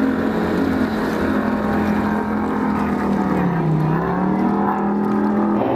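Supercharged alcohol-burning race boat engine running hard at speed, with a steady note. Its pitch dips briefly about three and a half seconds in, then climbs back.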